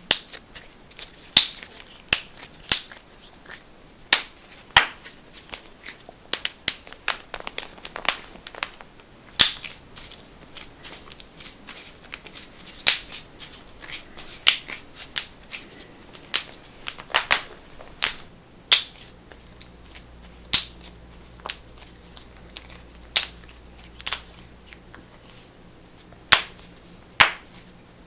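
Knuckles cracking: dozens of sharp pops at irregular intervals, some singly and some in quick clusters of two or three. A faint steady low hum comes in under the second half.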